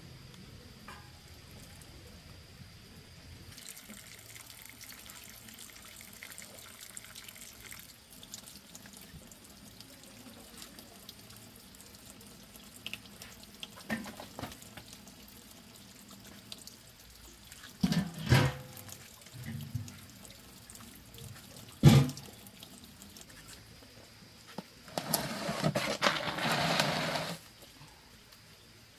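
Water pouring or splashing for about two seconds near the end, with a few sharp knocks before it.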